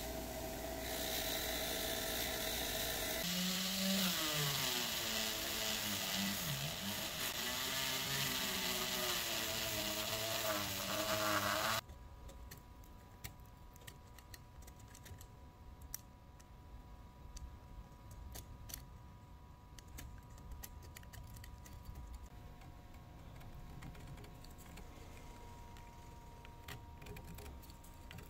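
Bench grinder wire wheel running with a wavering whir as the knurled steel part of a tap reseating tool is pressed against it to clean off rust. It cuts off abruptly about 12 seconds in, followed by faint scratching and small clicks as a pick scrapes dirt out of the thread grooves.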